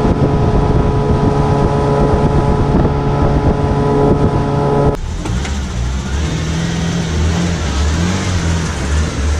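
Outboard motor running at a steady speed with the boat under way, wind rushing on the microphone. About five seconds in, this cuts abruptly to a small SUV's engine revving unevenly as it pulls out of the river up a sandy ramp.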